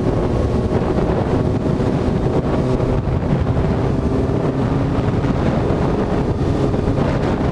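Wind rushing over a helmet-mounted microphone at road speed, with the steady note of a Kawasaki Z900's inline-four engine cruising underneath.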